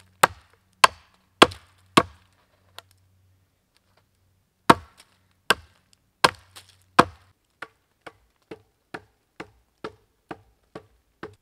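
A large blade chopping into a green sapling: a series of sharp, loud wood strikes, irregularly spaced. Later comes a run of lighter, evenly spaced wooden knocks, about two a second.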